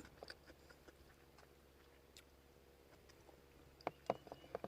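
Close-up chewing, mostly very faint, with a few sharper mouth clicks and smacks about four seconds in.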